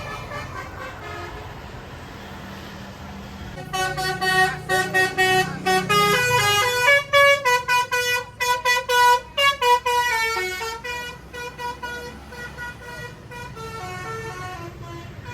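Bus telolet horn, a Basuri multi-tone musical air horn, playing a quick tune of changing notes for about ten seconds, starting about four seconds in, over a low engine rumble.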